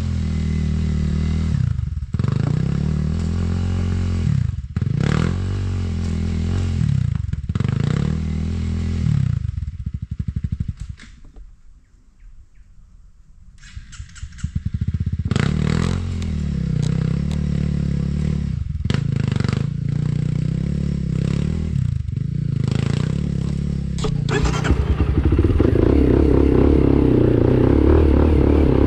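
Enduro dirt bike engine revving up and falling back again and again while riding, dropping almost to idle about ten seconds in, then picking up again and running louder and steadier near the end.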